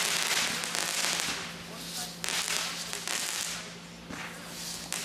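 Fireworks crackling in repeated swells of a second or two each, over a steady low hum.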